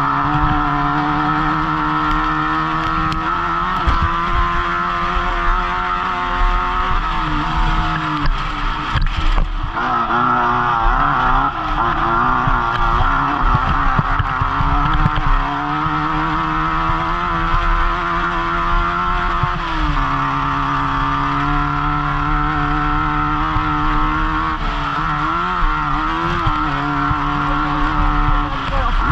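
Off-road race car's engine running hard at high revs, its pitch dipping and climbing again several times with throttle and gear changes, with frequent knocks and rattles from the car over rough ground; heard from the driver's helmet inside the car.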